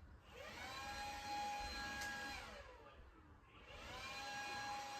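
Small electric power tool cutting drywall: the motor spins up, runs steadily with a whine, winds down, then starts again about two-thirds of the way in.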